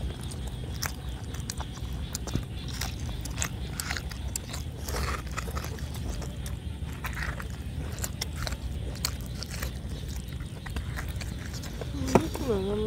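Two people chewing and biting boiled pig's head meat with their mouths, a run of irregular short smacks and clicks of eating.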